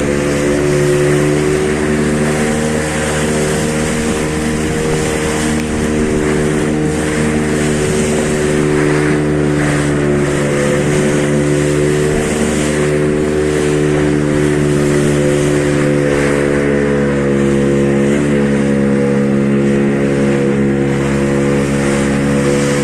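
A boat's engine running at a steady, unchanging speed, with a constant rush of wind and water noise over it.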